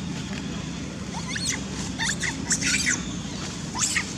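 Baby long-tailed macaque giving a run of shrill, high squeals that slide in pitch, starting about a second in and coming several times: distress calls for its mother. A steady low hum runs underneath.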